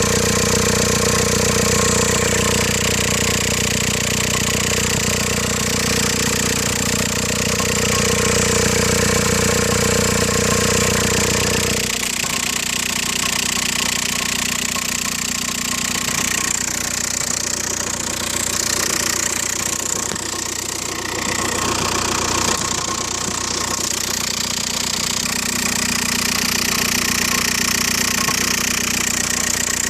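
2004 VW Golf TDI's 1.9-litre four-cylinder diesel idling with a steady tonal drone from the manual transmission, a noise the owner says disappears when the clutch is held all the way down. About twelve seconds in the drone and the low hum drop away abruptly while the engine keeps running.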